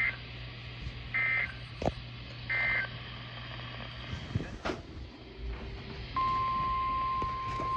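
Weather radio broadcast: three short bursts of SAME/EAS digital data tones, about 1.3 s apart, the end-of-message code that closes the tornado warning. About six seconds in, the steady, single-pitched 1050 Hz NOAA Weather Radio warning alarm tone starts and holds, over a background of radio hiss and hum.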